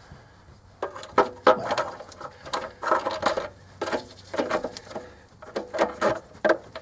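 Hand ratchet clicking in short, irregular bursts as the throttle body bolts are run in on a 2007 GMC Yukon Denali's intake manifold.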